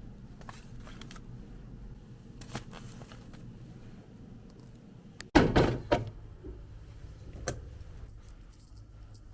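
Groceries being handled and put away in a fridge: scattered soft knocks and clicks, with a louder clatter of packaging about five seconds in and a sharp click a couple of seconds later.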